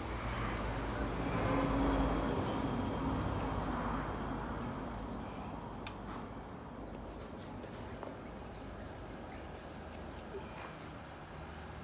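A bird repeating a short, high, downward-slurred chirp about every two seconds, over a steady low background noise that is louder for the first few seconds.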